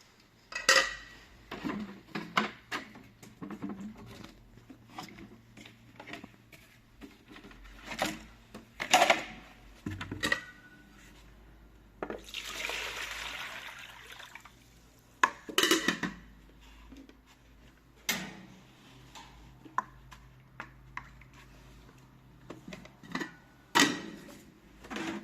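Household objects being handled, mostly metal or hard utensils: scattered clinks and knocks, a few louder clatters, and a rushing noise for about two seconds halfway through.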